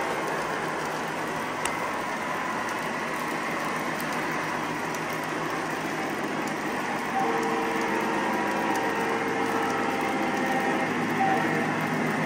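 O-gauge model freight train cars rolling on three-rail track with a steady clatter. About seven seconds in, a steady sound of several held tones joins and the level rises.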